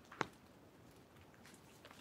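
Rain drips in the woods: one loud, close drop lands just after the start, then a few fainter scattered drips over a faint steady hiss.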